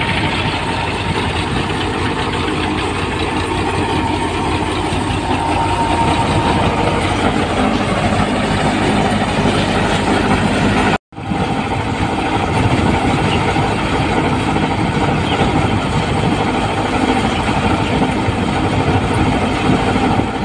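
Tractor-driven NJT multi-crop thresher running steadily while threshing green gram, its drum and fans going together with the tractor's engine in one dense mechanical noise. The sound breaks off for an instant about halfway through.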